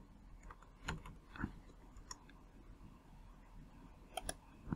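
Faint, scattered clicks of a computer mouse and keyboard: a few single clicks, then a quick pair near the end.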